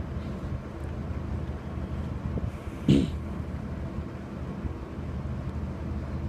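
Steady low hum and wind buffeting on the microphone, with one short, sharp sound about three seconds in.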